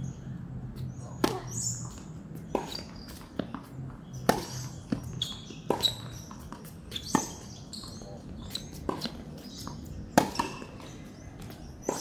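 Tennis rally on an outdoor hard court: sharp pops of racket strings striking the ball and of the ball bouncing, coming about every one and a half seconds.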